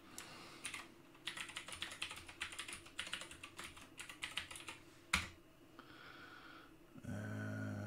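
Typing on a computer keyboard: a quick run of key clicks for about four and a half seconds, ending in one harder keystroke as the address is entered. Near the end comes a short, steady low hum.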